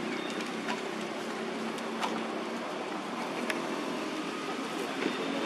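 A motor running with a steady hum, with a few faint sharp clicks spread through it.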